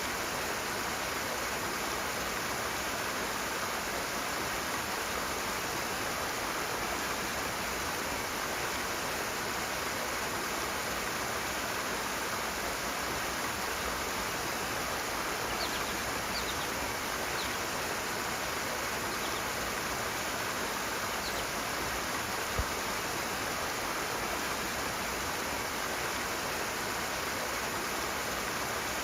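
Rushing water, a steady unbroken rush.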